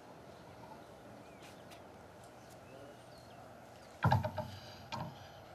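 Quiet outdoor background, then near the end two short bursts of a person's voice, about a second apart.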